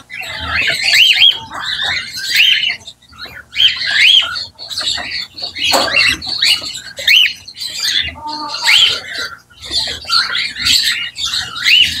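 Cockatiels calling over and over: loud, shrill squawks that rise and fall in pitch, following one another with hardly a break.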